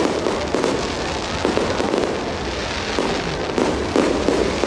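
Aerial fireworks bursting one after another, a string of sharp bangs over a continuous dense crackle.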